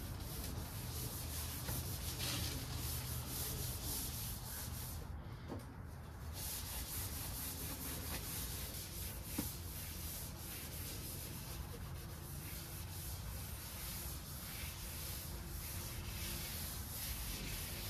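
Scuff pad rubbing back and forth over a painted car hood, a steady scratchy hiss of light scuffing strokes with a brief pause about five seconds in.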